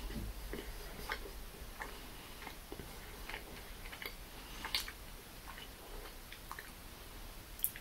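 Close mouth sounds of someone chewing a chewy chocolate macaron: soft, wet clicks about twice a second, with one sharper click near the end.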